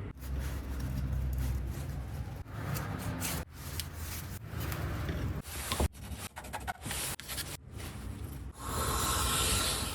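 Hand-tool scraping and rubbing on a workpiece, heard in a string of short clips that cut off abruptly one after another, with a sharp click about six seconds in and a louder stretch of scraping near the end.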